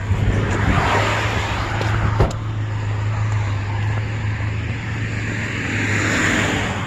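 Truck running and moving: a steady engine hum with road noise, and a single sharp knock about two seconds in.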